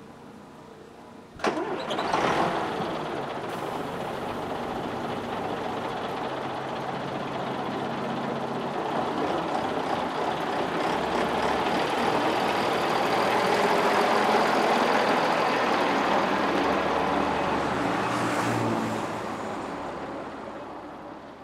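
A coach's diesel engine comes in suddenly with a clunk about a second and a half in, then runs and builds as the bus moves off, fading near the end.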